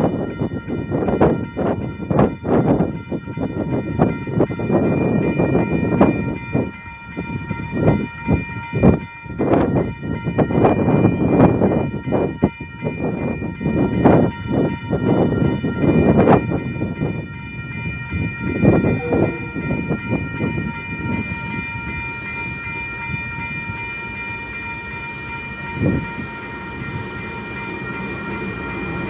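Level-crossing warning bells ringing steadily while the crossing lights flash and the barriers are down. Irregular low rumbles and thuds come over it, heavy through the first half and then settling into a steadier, quieter rumble.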